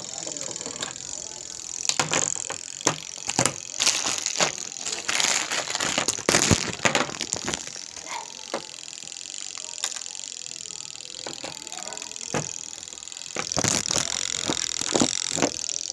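Irregular clicks, knocks and rattles of parts and tools being handled while working on a semi-automatic washing machine, busiest in the first half and again near the end, over a steady hiss.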